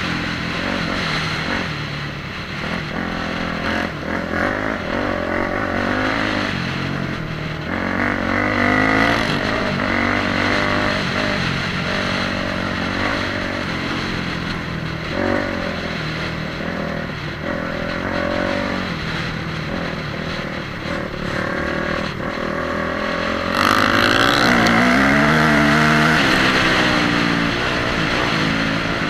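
Motorcycle engine revving up and down, getting louder for a few seconds near the end.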